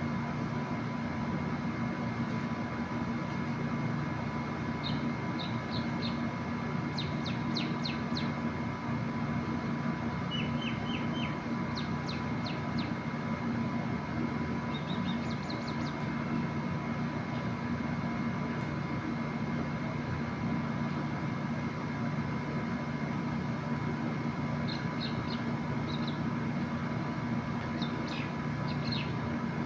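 Bird chirping in short runs of quick, high notes, several times, over a steady mechanical hum.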